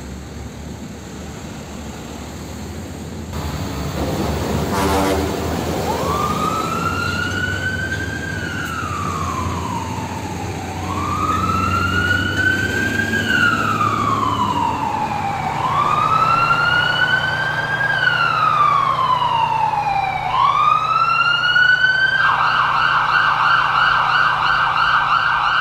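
Fire truck siren wailing over a low engine rumble: each cycle rises quickly and falls slowly, repeating about every five seconds, then near the end the siren switches to a fast yelp.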